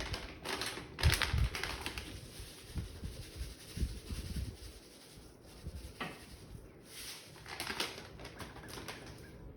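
Rustling and light knocks of kitchen handling as chia seeds are shaken into a bowl of porridge, in a few short bursts.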